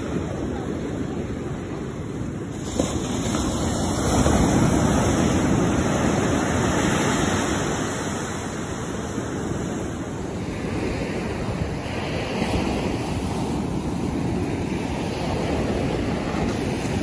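Ocean surf breaking and washing up onto the sand as a steady rush. It swells louder about four seconds in and eases again after about eight seconds.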